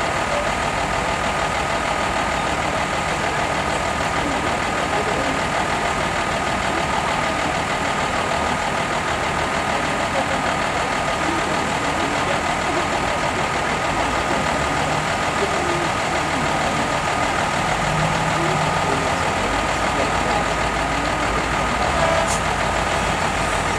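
Unimog truck engine running steadily at low revs as the truck crawls up a muddy off-road trial track.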